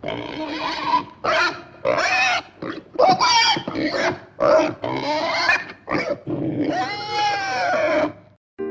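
A young man's voice roaring and yelling in a string of short, loud cries, the last one drawn out for about two seconds, in mock imitation of the MGM lion's roar.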